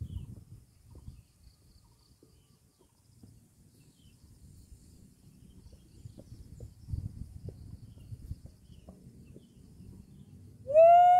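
Wind rumbling and buffeting on the microphone, with a faint steady high insect buzz. About half a second before the end, a loud steady tone at a single pitch starts suddenly and holds.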